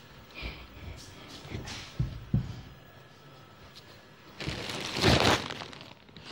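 Rustling of a cloth dupatta being handled close to the microphone, with a couple of soft knocks about two seconds in and a longer, louder burst of rustling near the end.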